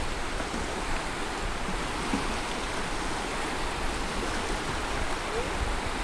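Small choppy waves breaking and washing up a shallow shore, a steady rushing of water.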